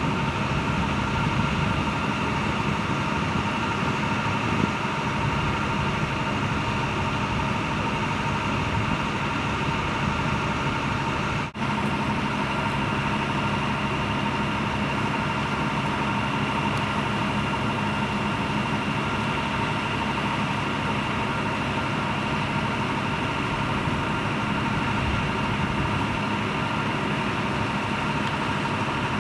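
Steady engine idling, with a constant whine over it. It drops out for an instant partway through.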